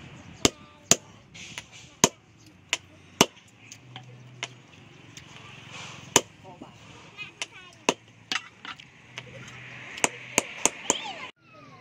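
Hammer striking the end of a wooden knife handle to drive it onto the tang, the blade held in a steel post anvil: about a dozen sharp knocks, irregularly spaced. There is a pause of about three seconds in the middle and a quick run of four strikes near the end.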